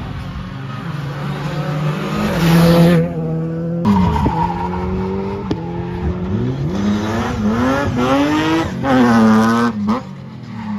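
Rally cars being thrown through a tight chicane, engines revving hard and dropping back as they go through the gears, with tyres skidding and squealing. The sound breaks off abruptly about four seconds in and another car takes over.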